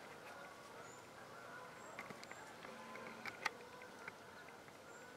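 Quiet woodland ambience: a few soft ticks and light rustles in dry leaves, the clearest about three and a half seconds in, with three brief high-pitched chirps.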